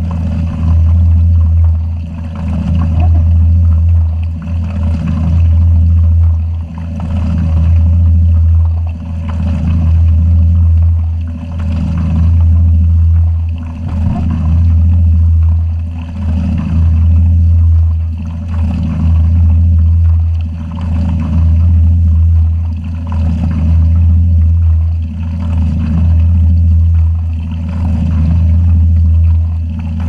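Gentle Annie top-loading washing machine running mid-cycle, heard from inside the tub: a loud low motor hum that swells and dips in a steady rhythm, roughly every one to two seconds.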